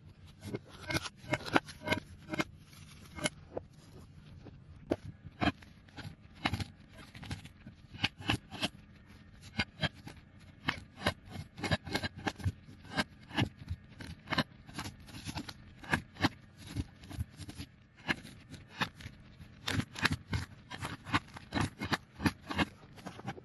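Chef's knife chopping a green bell pepper on a cutting board: a rapid, irregular run of sharp knocks as the blade cuts through and strikes the board.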